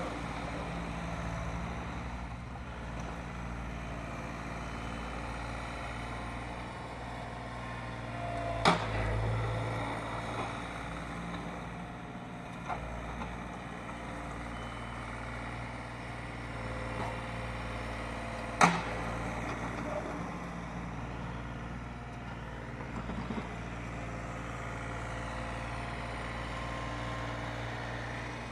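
A John Deere 3720 compact tractor's diesel engine running steadily while it plows snow, with two sharp bangs about ten seconds apart, a third and two thirds of the way through.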